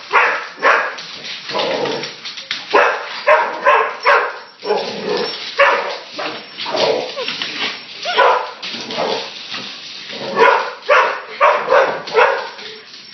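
A dog barking over and over in quick bursts at a toy helicopter that frightens it.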